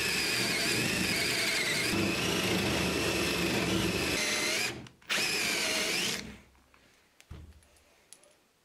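Handheld electric power tool running steadily, its pitch wavering slightly as it works. It cuts out briefly a little past halfway, runs again for about a second, then winds down, and a couple of light knocks follow.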